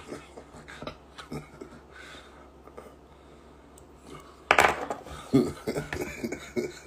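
A man laughing: a few seconds of quiet room sound with small clicks, then about four and a half seconds in a sudden loud burst of laughter followed by short voiced laughs.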